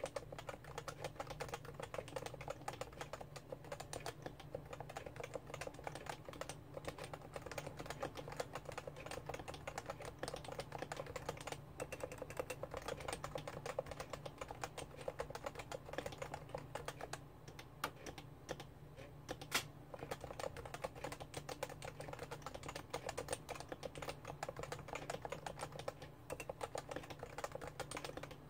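Continuous typing on a Realforce R2 keyboard with Topre electrostatic capacitive switches: a dense, unbroken stream of keystrokes.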